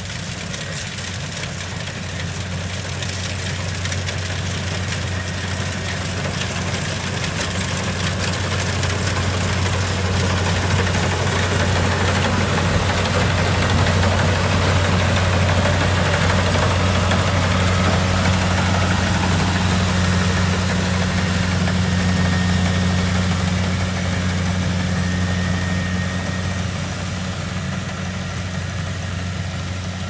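Kubota DC-70 Plus rice combine harvester running steadily as it cuts and threshes, a diesel engine hum with machinery noise. It grows louder as it passes close by about halfway through, then fades as it moves away.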